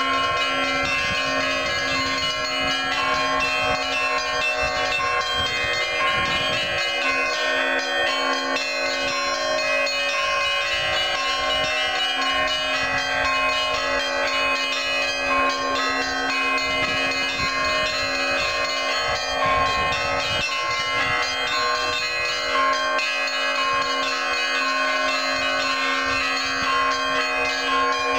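Russian Orthodox monastery bells ringing an Easter peal: several bells of different pitches sounding together without a break, over a steady low hum from a large bell.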